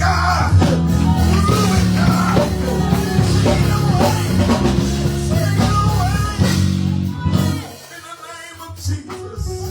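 Church band music playing under a prayer: sustained low chords with a voice singing or calling out above them. The music thins out and drops in level about eight seconds in, then picks up again.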